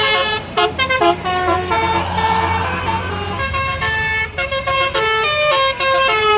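Tour bus telolet basuri horn playing a quick tune of short, changing toots, with a bus engine rumbling underneath around the middle.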